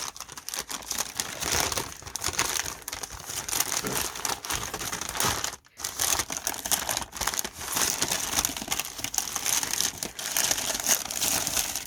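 Paper packing crinkling and rustling as a wrapped item is handled and unwrapped by hand, with a brief pause a little past halfway.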